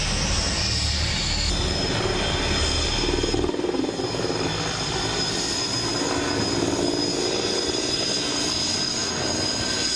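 Aircraft engines droning steadily with a thin high whine; a deep rumble beneath them drops away about three and a half seconds in.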